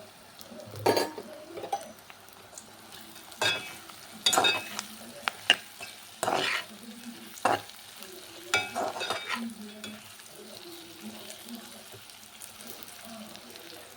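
A spoon or spatula stirring and scraping chicken pieces around a pan of hot oil and spices, with a faint frying sizzle under it. The strokes come irregularly, about eight in the first ten seconds, then the stirring grows quieter.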